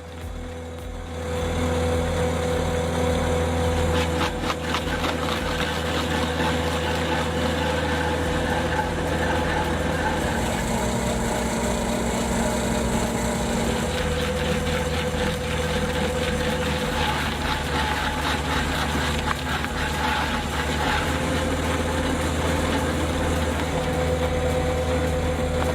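A skid steer's engine running steadily, with an even hum that holds its pitch, while it drives an auger-mounted stump planer.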